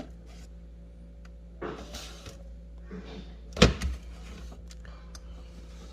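Everyday handling noises over a steady low hum: a brief rustle or swish, then a single sharp knock about three and a half seconds in, like a door or cupboard being shut.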